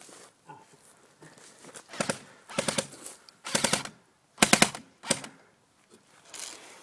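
Airsoft electric rifle firing a string of short full-auto bursts, each a rapid run of clicks. The bursts come between about two and five seconds in, the loudest near the middle.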